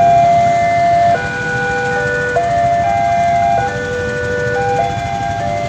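Railway level-crossing warning alarm sounding, which warns that a train is approaching: an electronic two-tone chime that switches pitch about every 1.2 seconds, over a low rumble of traffic.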